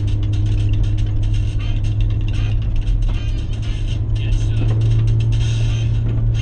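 Vehicle driving over a rough dirt road: a steady low drone with constant rattling and knocking from the bumps.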